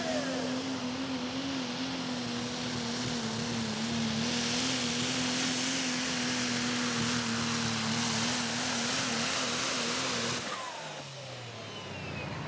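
Cummins diesel engine of a Ram pickup at full throttle pulling a sled, a steady high drone with a slight waver in pitch. About ten seconds in, the throttle is lifted and the engine falls away as the truck comes to a stop.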